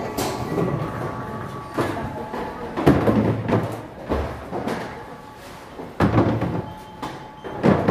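Several loud thumps and knocks a second or two apart over a background murmur of voices in a large, echoing hall.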